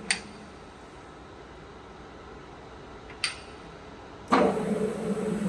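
Mecca Turn 460x1000 lathe stopping with a click, a gear-change lever clicking into place about three seconds in, then the lathe starting again about a second later and running with a steady hum on its maximum feed rate.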